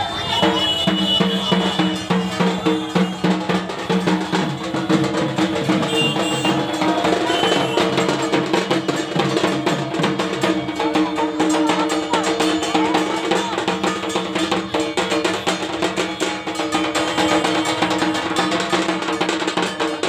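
Music with fast, dense drumming and a clanking metal percussion, over steady held tones underneath.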